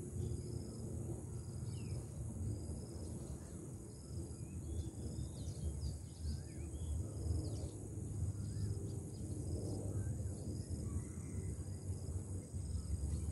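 Riverside ambience: insects keep up steady high-pitched trilling, with one chirp repeating about once a second, and birds call briefly now and then. Under it runs a low rumble, the loudest part of the sound.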